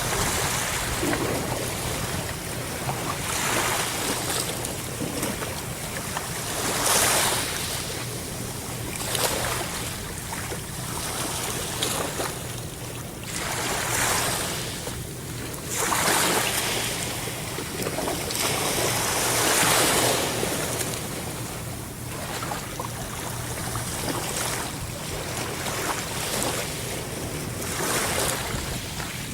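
Ocean waves washing in, surging in loud swells every few seconds over a steady low rumble.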